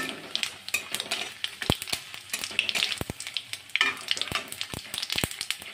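Whole spices (cumin seeds, bay leaves, cardamom, cloves) sizzling in hot mustard oil in a kadai on a low flame, stirred with a spatula, with frequent sharp clicks of the spatula against the pan. This is the tempering of spices for a curry.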